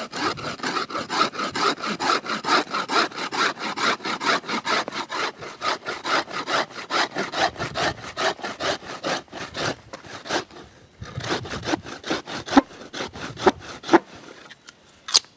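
Hand saw cutting through a wooden stick in quick back-and-forth strokes, about three to four a second. The sawing pauses briefly about ten seconds in, then resumes, with a few sharp knocks near the end.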